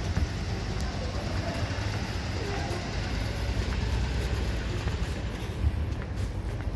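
Steady low rumble of outdoor city background noise, with no single event standing out.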